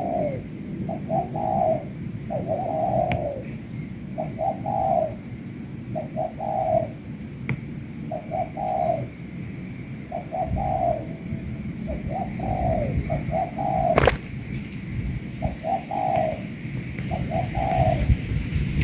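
Spotted doves cooing in a steady series of short, repeated coo phrases, one about every second and a half. A single sharp click comes about fourteen seconds in.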